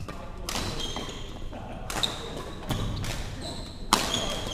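Badminton rackets striking a shuttlecock: four sharp hits about a second apart, with shoe soles squeaking briefly on the wooden court floor, echoing in a large hall.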